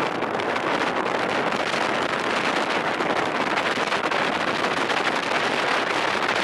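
Steady rushing wind noise on the microphone aboard a sightseeing boat on open water, with the boat and water noise blended into an even hiss.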